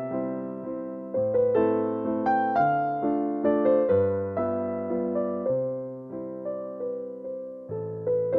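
Background music: a gentle electric piano playing a slow melody of struck, decaying notes.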